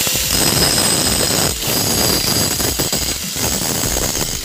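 Angle grinder grinding down a weld bead on steel angle bar: a steady high whine over harsh grinding noise, dipping briefly twice.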